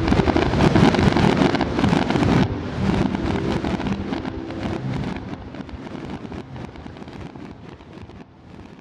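Fireworks crackling in a dense patter of small bangs over a rumble, fading out steadily.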